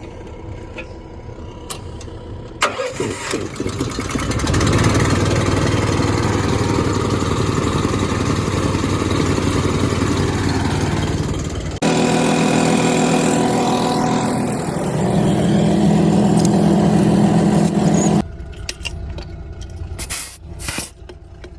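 Heavy diesel truck engine of a 1986 Peterbilt 359 running to build air pressure, loud and steady from about three seconds in. The sound changes abruptly about twelve seconds in and drops away suddenly about eighteen seconds in.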